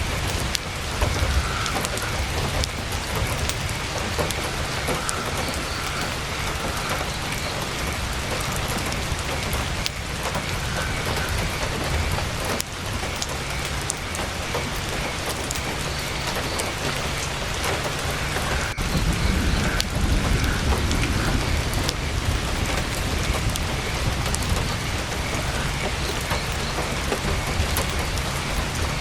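Heavy rain hitting a tent's fabric: a steady, dense patter with scattered sharp ticks. A low rumble swells about nineteen seconds in.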